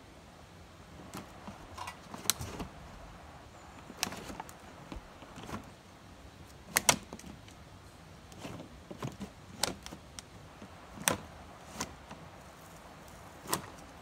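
Irregular sharp clicks and knocks, about fifteen in all and a second or so apart, over a faint steady hiss.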